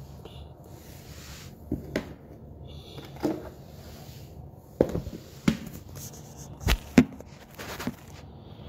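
Irregular knocks and bumps of a phone being handled and set in place on a kitchen counter, about eight sharp taps, some in quick pairs, over a low steady hum.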